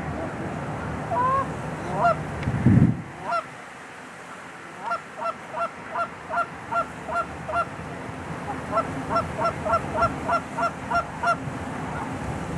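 Canada geese honking overhead: a few single honks, then two long runs of evenly spaced honks at about two to three a second. A low rumble in the first few seconds ends with a loud low thump just before the honking runs begin.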